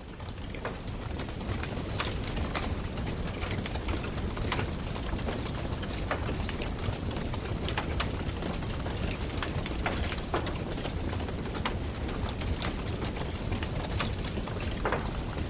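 Wood campfire burning, crackling with irregular sharp pops and snaps over a steady low rumble of the flames. The sound swells in over the first couple of seconds.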